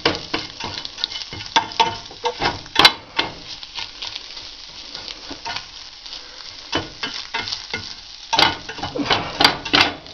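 Scrambled eggs sizzling in a nonstick frying pan while a utensil stirs them, scraping and tapping against the pan in irregular clicks. There are louder clusters of scrapes about three seconds in and again near the end.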